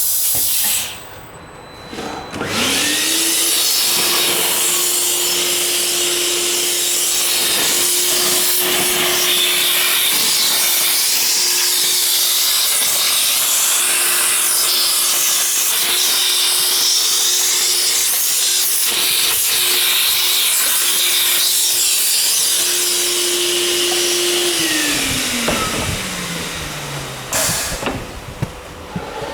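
MLA A40/A45 copy router milling a steel door profile: the spindle motor spins up with a rising whine about two seconds in, runs at a steady high pitch under a loud hissing cutting noise for about twenty seconds, then winds down with a falling whine near the end.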